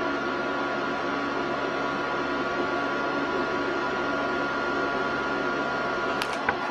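Flux-core wire-feed welder arc crackling steadily while laying a practice bead, over the machine's steady electrical hum. A sharp click comes near the end.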